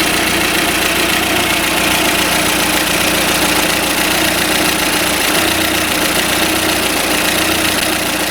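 Warmed-up four-cylinder petrol engine idling steadily. Its valve clearances are set at the wide end of the allowed range, 0.4 mm exhaust and 0.25 mm intake.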